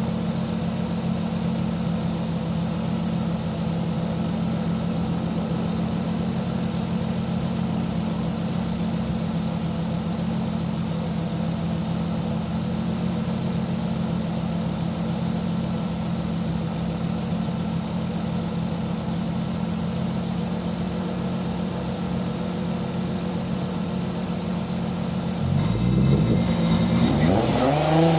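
Turbocharged 1JZ VVTi inline-six in a Nissan 240SX running steadily at low revs. About 25 seconds in it gets louder and its pitch climbs as the car accelerates.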